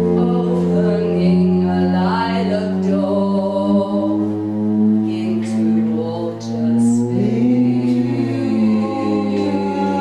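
Live experimental music: voices singing long held notes that slide slowly in pitch, over a low steady drone.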